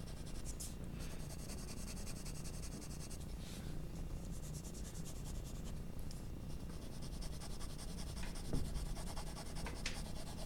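Graphite pencil shading on paper: quick, repeated back-and-forth scratchy strokes, in two runs with a pause between them.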